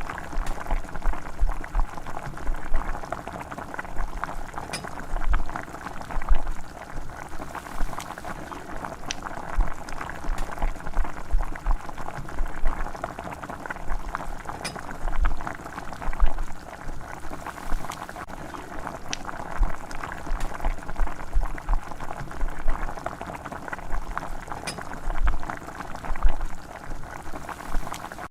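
Liquid bubbling steadily at a boil, a continuous crackly bubbling with occasional low bumps.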